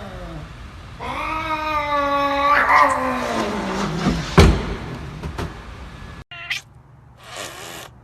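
Cat giving a long drawn-out yowl that slides down in pitch at its end, followed by a sharp knock. A brief second call and a short hissy burst come near the end.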